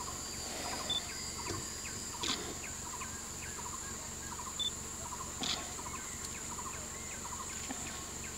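Forest ambience: a steady high-pitched insect drone with many short bird chirps, and a couple of brief sharp clicks.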